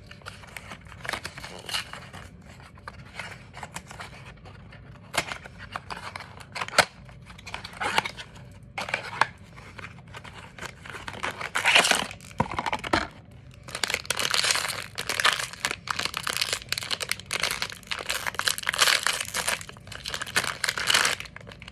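Blind-box packaging being torn open and crinkled by hand: scattered rips and rustles, a loud tear about twelve seconds in, then denser crinkling over the last several seconds.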